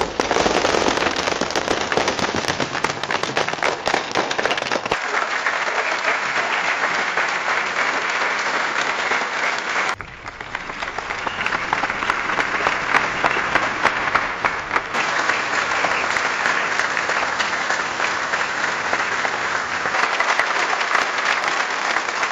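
Audience applause: a dense crowd clapping, made up of several different applause recordings that change about every five seconds. Midway one starts quieter and swells up.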